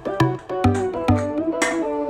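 Background music: a melody over a steady drum beat of about two strikes a second.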